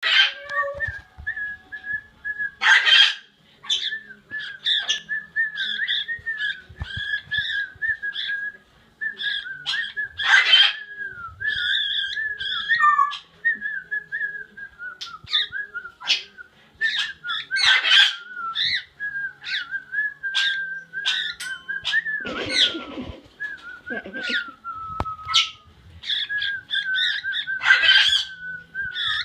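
A baby cockatiel practising its song: a thin, wavering whistle held near one pitch, broken by many short chirps and a few louder, noisy bursts. It is the halting, unfinished warble of a young bird still learning to sing.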